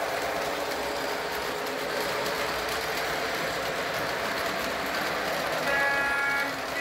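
Model diesel locomotive and freight cars rolling along three-rail track with a steady rumble, and near the end one horn blast of under a second from the locomotive's sound system.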